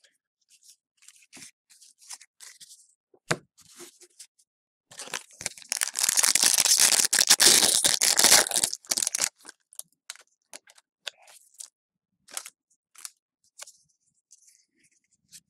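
Trading cards handled with light clicks and rustles, then, about five seconds in, a foil card pack torn and crinkled open for about four seconds, followed by more scattered card clicks.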